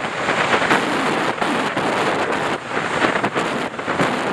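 Wind buffeting the microphone of a camera on a motorcycle riding at highway speed: a loud, steady rush of noise that keeps surging and dipping.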